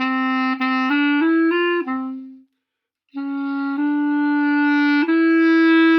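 Solo clarinet playing a phrase of short notes that climb step by step, a brief rest about two and a half seconds in, then long held notes, the last one a step higher.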